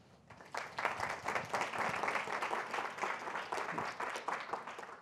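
Audience applauding, a dense patter of many hands clapping that starts about half a second in and keeps going.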